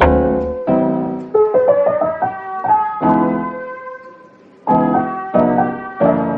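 Background piano music: chords struck and left to ring, in a slow, gentle rhythm.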